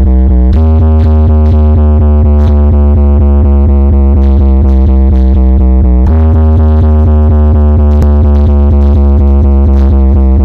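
Loud electronic DJ remix music: a sustained synth chord over heavy bass and a steady drum-machine beat, with the bass line shifting about half a second in and again about six seconds in.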